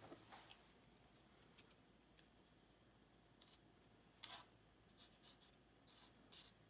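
Near silence with a few faint, scattered clicks of wooden chopsticks picking pumpkin seeds out of a ceramic ramekin and setting them on soft batter; the clearest click comes about four seconds in.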